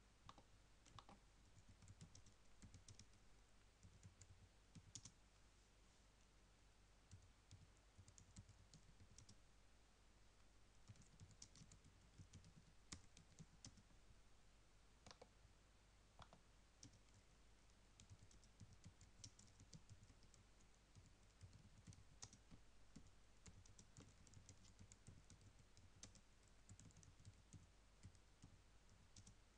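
Faint typing on a computer keyboard: irregular runs of light key clicks, with short pauses between bursts.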